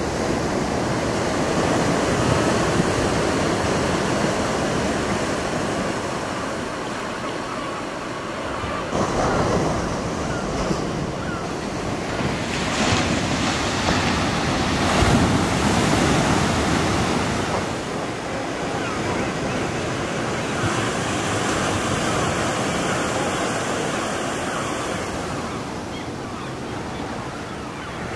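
Ocean surf breaking and washing up a sandy beach, a steady rushing that swells and eases with each wave, with wind buffeting the microphone.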